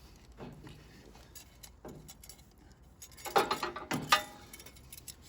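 Metal clinking and rattling of a hose clamp and hand tools being handled while a radiator hose clamp is fitted, with a short run of louder clinks about three to four seconds in.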